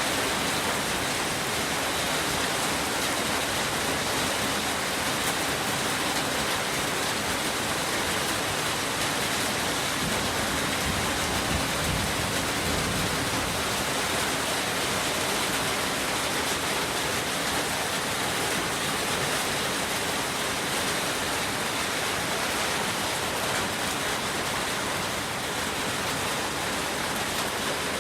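Heavy rain falling steadily with running water, a constant even hiss.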